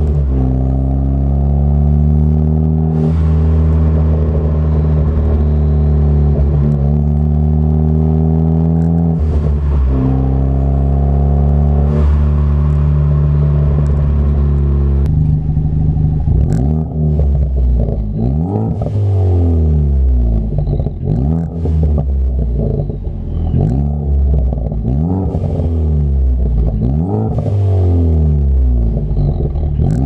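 Ford Focus ST's turbocharged four-cylinder through an MBRP cat-back exhaust, heard at the tailpipes. First it accelerates in normal driving, the pitch climbing in each gear and dropping at each shift. About halfway in it is revved in neutral to 2,000–3,000 rpm in a series of short blips, each rising and falling back.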